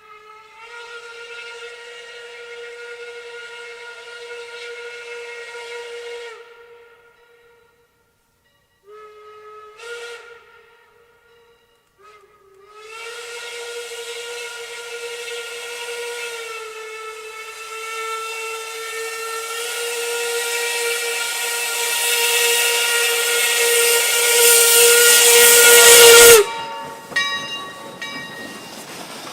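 Steam locomotive whistle blowing three blasts: a long one of about six seconds, a short toot, then a long blast of about fourteen seconds that grows steadily louder and cuts off suddenly.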